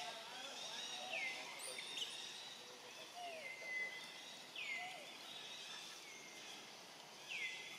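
A bird calling four times, each call a quick downward slur that ends in a short held note, over steady outdoor background noise.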